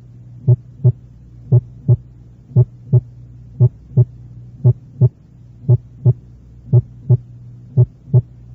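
Human heart sounds heard on auscultation: regular lub-dub pairs, the first and second heart sounds, about one pair a second, over a steady low hum. The first heart sound is of moderate intensity and still louder than the second, as at a PR interval of 0.14 to 0.16 seconds.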